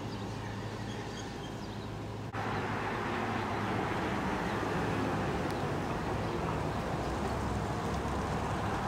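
Outdoor street ambience: a steady low hum and hiss with faint bird chirps, jumping suddenly louder and rougher about two seconds in.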